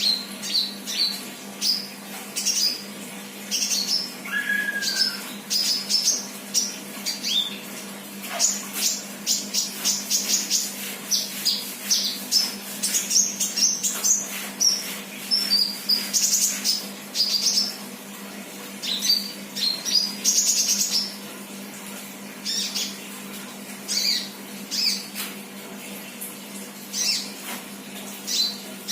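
Young untrained sunbird chirping and twittering busily in quick, high-pitched bursts of short notes and rapid trills. A steady low hum runs underneath.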